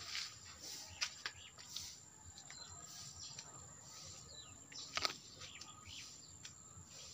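Birds chirping in the background, many short high chirps. A few sharp clicks cut through, the loudest about five seconds in.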